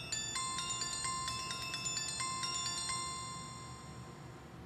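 Smartphone alarm tone ringing: a pattern of held, bell-like chiming notes that fades toward the end and then starts over.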